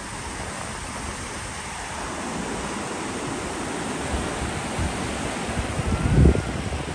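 Ocean surf breaking on the beach, a steady wash of waves. A few low thuds on the microphone from about four seconds in, the loudest about six seconds in.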